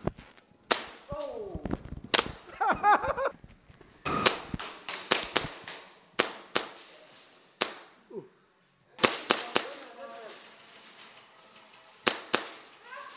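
Airsoft guns firing indoors: sharp cracks, some single and some in quick strings of two to four, scattered irregularly, with short gaps between bursts.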